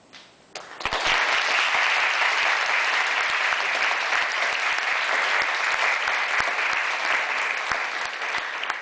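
Audience applause breaking out about a second in, a dense steady clapping that starts to thin near the end.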